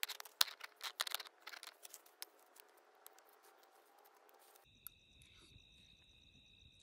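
Rocks knocking and scraping as they are set down on dry, gritty ground, with dry twigs rustling as they are laid between them: a quick run of clicks and knocks that thins out after about two and a half seconds. Past the middle the sound changes abruptly to a steady, high chirring of night insects such as crickets.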